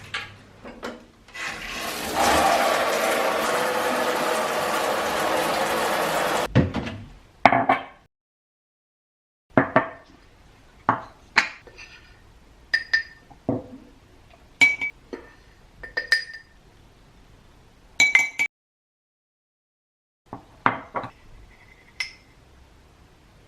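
Water running steadily for about four seconds, then a series of sharp clinks of dishes and cutlery knocking together, some ringing briefly.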